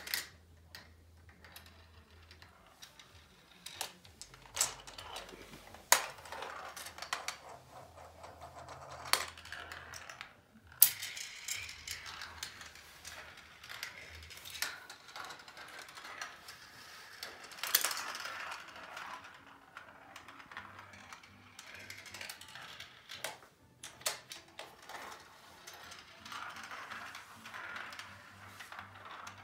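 Marbles running through a GraviTrax marble run: a rolling rattle along the plastic rails and tracks, broken by many sharp clicks as the balls drop onto and knock against the track pieces, the loudest about 6, 11 and 18 seconds in.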